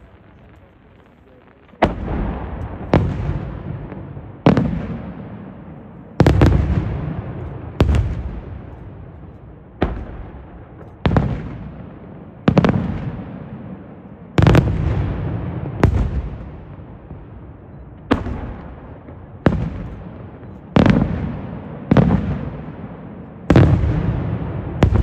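Aerial firework shells bursting in a steady sequence: after a couple of seconds of low hiss, a sharp bang comes about every second and a half, each followed by a long rolling echo that fades before the next.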